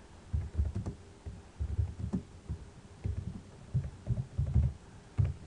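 Computer keyboard being typed on in short irregular runs: dull low thuds of the keystrokes with faint clicks.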